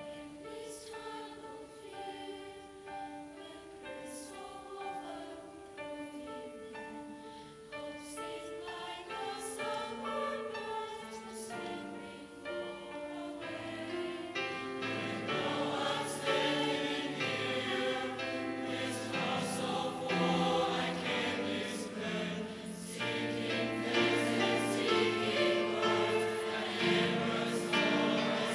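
Mixed choir of men and women singing together in held, stepping notes. Lower voices join about halfway through and the singing grows louder toward the end.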